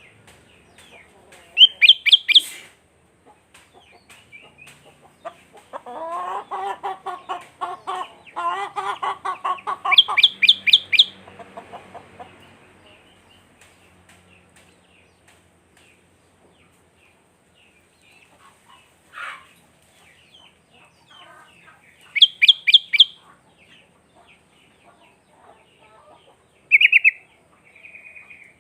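Sooty-headed bulbul (kutilang) singing: three short bursts of rapid, bright notes a few seconds apart, with softer scattered chirps in between. About a fifth of the way in, a chicken clucks in a quick run of lower notes for several seconds.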